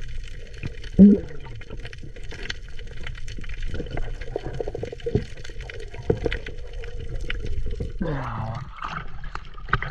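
Muffled underwater sound picked up by a submerged camera: a steady low rumble of water with scattered crackling clicks and a louder knock about a second in. Bubbling gurgles come near the end.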